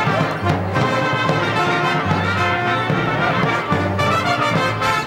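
Brass band playing live, trombones and trumpets carrying the melody over a low bass note that comes back about every second and a half.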